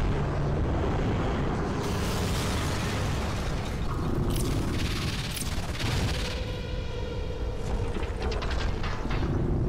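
Sci-fi battle sound effects of giant robots fighting: heavy mechanical servo and clanking sounds over a continuous low rumble, with several booming surges, and a high mechanical whine for a second or so past the middle.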